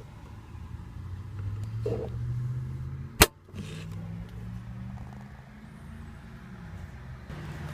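A lid or panel in the car's cabin shutting with a single sharp click about three seconds in, over a low steady hum.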